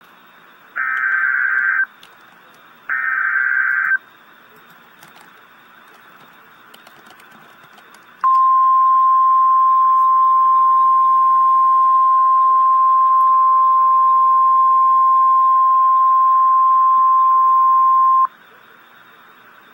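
Emergency Alert System alert. It opens with two SAME data header bursts, each a harsh digital buzz lasting about a second, with faint radio hiss between them. Then comes the single steady 1050 Hz weather alarm tone, held for about ten seconds and cutting off sharply, which signals a severe thunderstorm warning.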